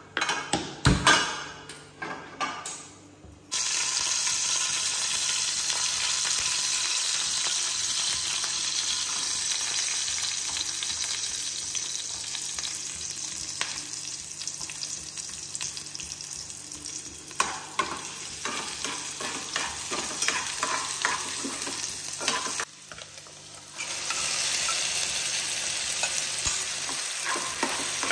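A few knocks of utensils, then about three and a half seconds in a sizzle starts suddenly as the freshly ground masala gravy goes into hot oil in a pan. It keeps sizzling while it is stirred, drops off briefly about 23 seconds in, and comes back.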